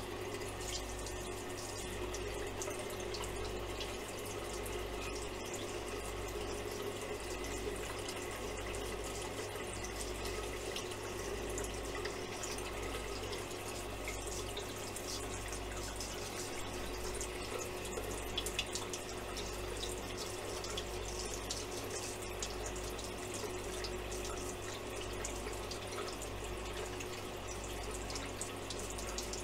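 Straight razor scraping through lather and stubble in short strokes, heard as faint crackling ticks over a steady rushing noise with a low hum.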